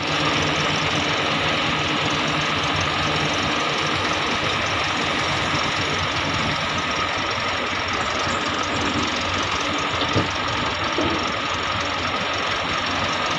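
Heavy diesel engine of an XCMG XE370CA excavator running steadily under load while it swings a bucket of nickel ore over a dump truck. A sharp knock comes about ten seconds in, as the load drops into the truck's steel bed.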